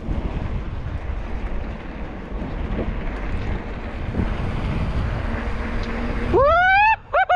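Wind buffeting the microphone with a low rumble while riding a bicycle at speed. Near the end, two loud whoops, each swooping up then down in pitch.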